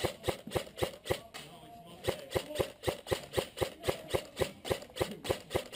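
Airsoft rifle firing single shots in quick succession, about four sharp cracks a second, with a short pause just over a second in.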